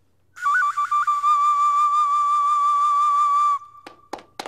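A boy bird caller's whistled bird-call imitation: a few quick warbling steps, then one long, high, held note with a slight waver. It breaks off about three and a half seconds in, leaving a faint trace of the note and a few clicks.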